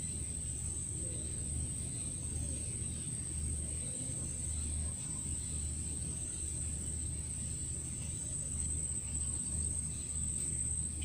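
Steady, high-pitched insect drone, one unbroken tone, over a low rumble.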